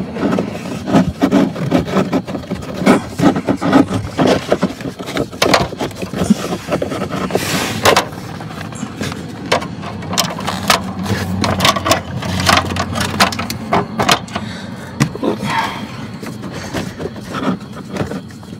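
New pleated cabin air filter rustling and scraping against the plastic filter housing of an Audi A5 as it is flexed and pushed into its slot, with many short clicks and knocks of the frame and trim.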